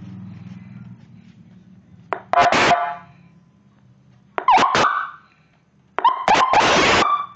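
Electronic vehicle siren sounding in short blasts: a brief burst about two seconds in, then a quick chirp that dips and rises in pitch, then a harsh buzzing horn tone that starts near the end and carries on. A low hum lies under the quiet gaps.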